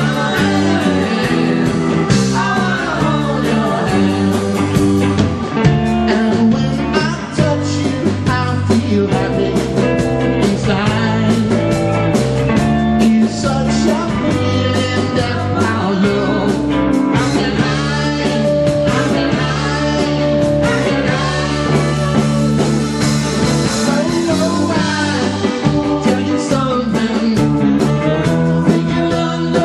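Live rock band playing a loud, steady number on electric guitar, electric bass and drum kit, with a tenor saxophone.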